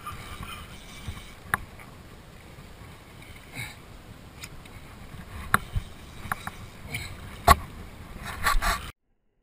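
Low, steady water and wind noise around a small open fishing boat, broken by a few sharp knocks. A louder rush comes near the end, and then the sound cuts off abruptly.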